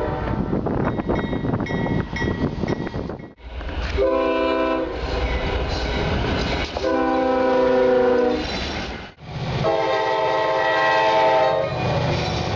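CSX diesel freight locomotives passing, in short clips cut together. Their multi-chime air horns sound in several separate blasts over engine rumble and wheel noise. The sound drops out abruptly twice, at the cuts, about a third of the way in and about three quarters of the way in.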